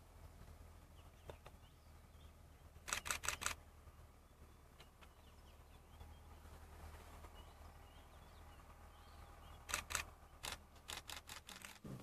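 Camera shutters firing in rapid bursts: a run of about five quick clicks about three seconds in, then more quick runs of clicks near the end, over faint bird calls.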